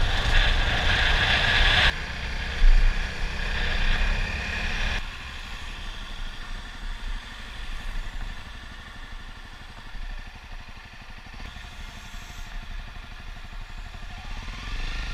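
Honda CRF250L's single-cylinder four-stroke engine running under way, mixed with wind noise on a helmet-mounted microphone. There is a brief loud knock under three seconds in, and the sound drops sharply in level about five seconds in.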